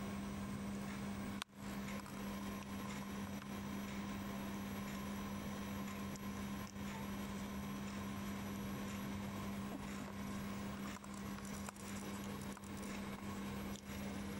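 A steady low hum over constant background hiss. It cuts out briefly about one and a half seconds in.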